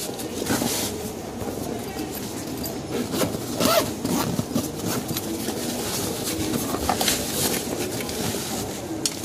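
Zipper on the fabric carry bag of a portable 12-volt double-cylinder air compressor being pulled open, with rustling and handling of the bag and a few short sharp knocks.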